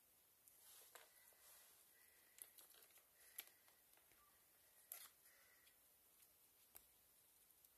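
Near silence: faint room tone broken by a few soft, scattered clicks, about six over several seconds.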